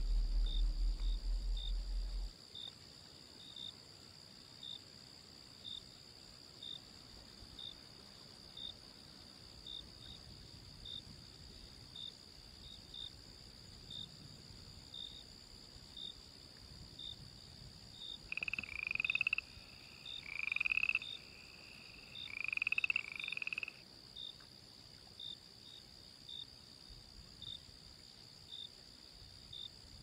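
Night chorus of crickets: a steady high trill with a short chirp about once a second. Around two-thirds of the way through, a frog calls in three short bouts of rising croaks. A low hum is heard for the first two seconds and then cuts off.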